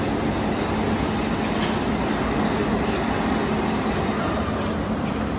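Steady din of heavy industrial machinery running, with a low hum and a high-pitched whine that comes and goes.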